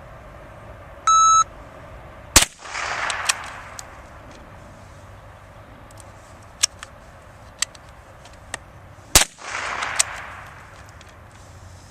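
A shot-timer start beep, then two .22 rifle shots from a single-shot bolt-action Crickett about seven seconds apart, with small clicks between them as the bolt is worked for reloading.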